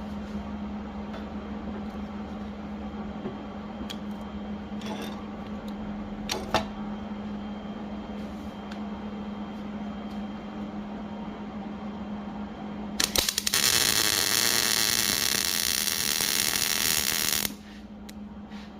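A steady electrical hum with a few faint clicks. About two-thirds of the way in, a welding arc crackles loudly for about four and a half seconds and then stops abruptly.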